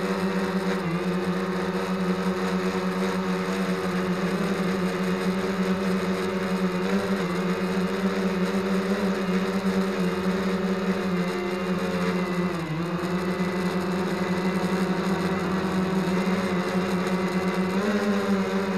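Camera drone's electric motors and propellers humming steadily in flight, the pitch dipping briefly a few times as the motors adjust speed, most deeply about two-thirds of the way through.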